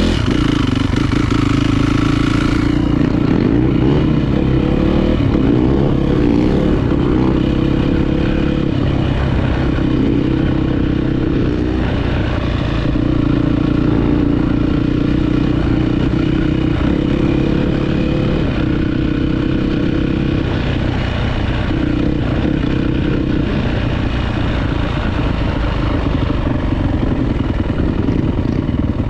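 Single-cylinder four-stroke 450 cc dirt bike engine running at a fairly even engine speed, easing off briefly a couple of times.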